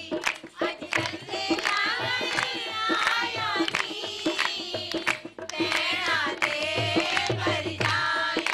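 Voices singing a mehndi wedding folk song over a steady beat of dholak drums and hand-clapping.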